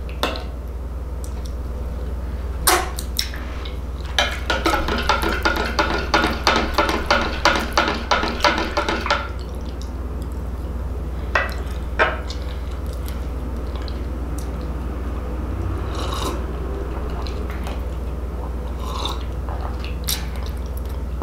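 Metal spoon stirring agave into a glass of tea, clinking against the glass about three or four times a second for about five seconds, with single clinks before and after. A steady low hum runs underneath.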